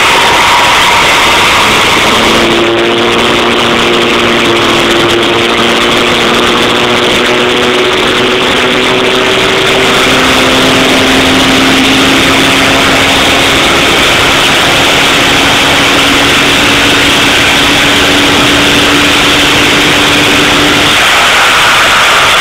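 Dodge Ram's 5.9 L Cummins turbodiesel running loud under load on a chassis dyno, its pitch climbing slowly, stepping down once about nine seconds in and climbing again until it ends about twenty-one seconds in: a baseline dyno pull on the stock tune.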